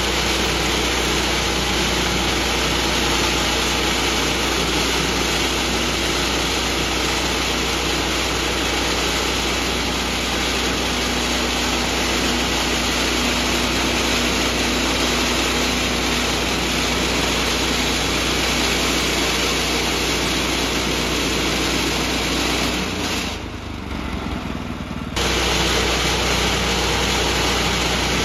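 Gas engine of a Woodland Mills HM126 portable bandsaw mill running steadily while its band blade saws through a log. About three-quarters of the way through, the sound drops away for about two seconds, then comes back abruptly at full level.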